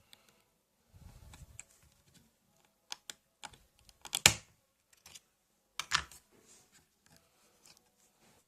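Sharp clicks and knocks from a Lenovo ThinkPad R500 laptop being handled during a RAM upgrade. The loudest is a double click about four seconds in and another about six seconds in, with a brief low rumble of handling near the start.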